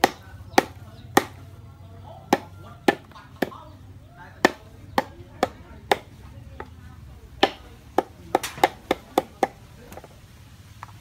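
Knife chopping on a round wooden cutting board: sharp, separate strokes at an uneven pace, about twenty in all, pausing briefly in the middle and then coming quicker for a short run near the end.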